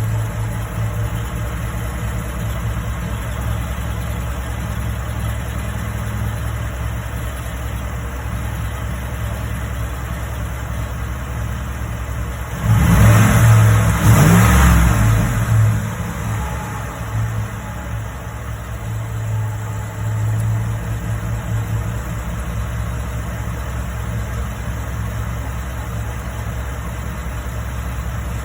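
2013 Ford 5.0-litre V8 idling steadily, revved once for about three seconds around the middle with the pitch rising, then dropping back to idle, with a smaller blip of the throttle a few seconds later.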